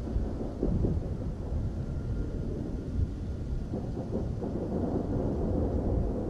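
Wind blowing across the camera's microphone: a steady low rumble whose loudness keeps rising and falling.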